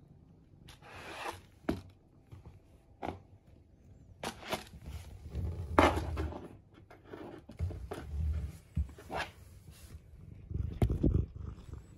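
A cat's clear plastic Elizabethan collar knocking and scraping against a cardboard box and the floor as the cat noses around, in irregular knocks and scrapes with the loudest knock about six seconds in, and a low rumble in between.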